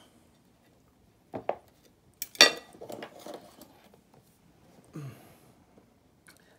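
Cutlery clinking against a plate: two light knocks, then about a second later a loud ringing clatter of metal on the dish with a short rattle after it, and a softer scraping sound near the end.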